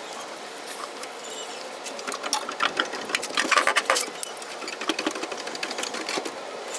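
Hand ratchet clicking in quick runs while bolting a fuel tank back up under a car. The clicks are loudest and densest from about two and a half to four seconds in.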